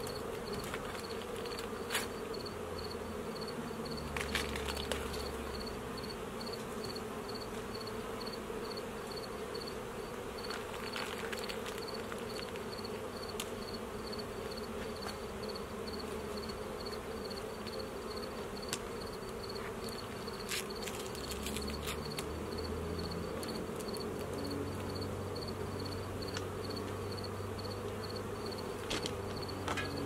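Honey bees buzzing steadily around an open hive, with a few sharp clicks and scrapes scattered through as a hive tool works the wooden frames and boxes.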